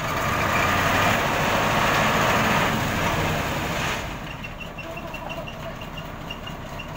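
Cab-over flatbed truck's diesel engine running, loud for about four seconds and then easing to a quieter rumble. From then on, short high beeps repeat about three times a second.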